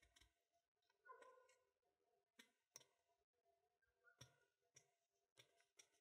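Faint, scattered clicks of a brass disc detainer pick turning a disc inside a Bell Catalyst 750 bike U-lock. There are about half a dozen light ticks, spread unevenly, as the disc is rotated under tension against the sidebar.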